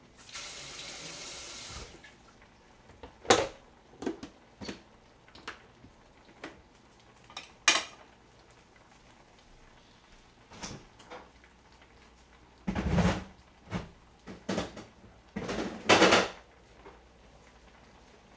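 Kitchen tap running for about two seconds, then a series of knocks and clatters as utensils, a knife, dishes and containers are handled and set down on a counter, loudest about 13 and 16 seconds in.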